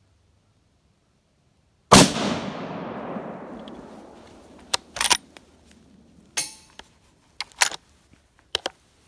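A single scoped hunting rifle shot about two seconds in, loud and sudden, its report echoing away through the woods for a couple of seconds. Several sharp clicks and knocks follow.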